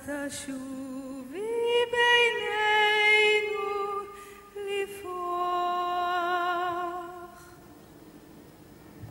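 A solo voice singing the last phrases of a slow memorial song. The long notes carry vibrato, and the final held note fades out about seven seconds in.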